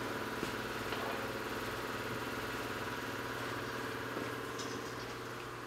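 A machine running with a steady hum.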